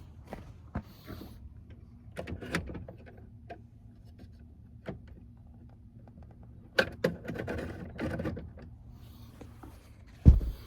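Scattered clicks, knocks and rattles of hands and parts being handled, over a steady low hum. A loud thump comes just before the end, and the hum stops with it.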